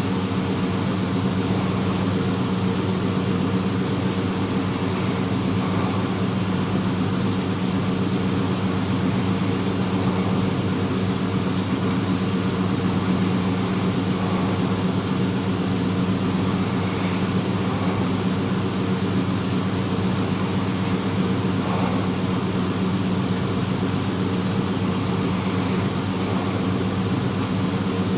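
A steady mechanical hum with constant low tones and an even hiss, of the kind heard inside a running vehicle or from a fan, with faint soft sounds recurring about every four seconds.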